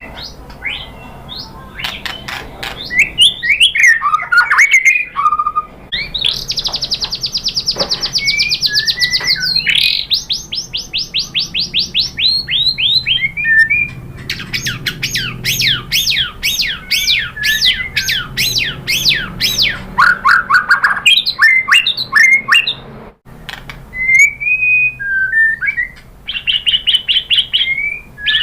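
White-rumped shama singing a long, varied song of sweeping whistled notes, fast trills and rapid-fire runs of repeated notes.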